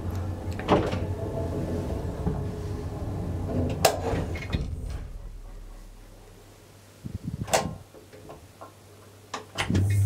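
Original TITAN elevator running with a steady low hum and sharp clicks, then the hum dies away as the car slows and stops about six seconds in. A few clanks follow, and the motor hum starts up again at the very end.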